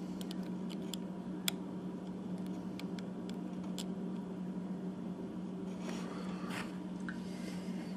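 A few faint, sharp clicks of tiny plastic gears being handled and dropped into a prosthetic finger's gearbox, with a brief scrape a little before the end, over a steady low background hum.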